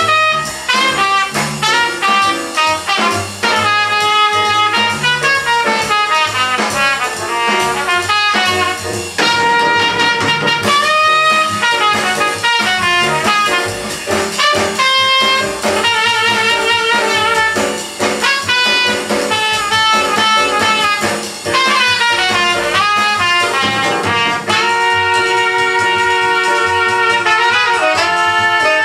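Jazz record playing on a Rega RP6 turntable through Rega RS5 speakers: a trumpet leads with saxophone over drums, and the horns hold long notes together near the end.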